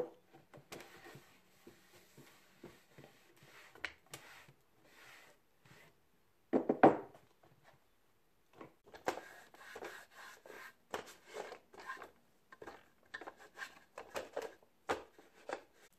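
Dusting by hand: a cloth rubbing over a wooden desk and an office chair, with things lifted and set down in short knocks and clatters. The loudest clatter comes about seven seconds in.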